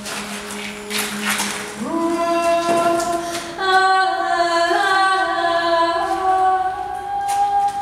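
Wordless female vocalising in long held notes. The voice glides up onto a sustained note about two seconds in and steps higher again a second and a half later, holding each pitch steadily. Before it comes in there is a low steady tone and several bursts of hiss.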